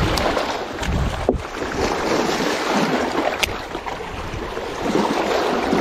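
Small waves washing and splashing against jetty rocks, with wind buffeting the microphone. Two sharp clicks stand out, one about a second in and one past the middle.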